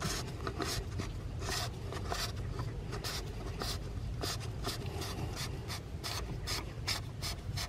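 Plastic oil filter cap on a Ford 6.0L Powerstroke diesel being screwed down by hand onto its housing: a run of short scrapes, about two or three a second, as the cap threads turn and the hand regrips it.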